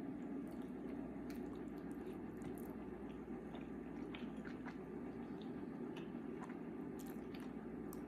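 A person chewing food close to the microphone, with scattered wet mouth clicks and smacks over a steady low background noise.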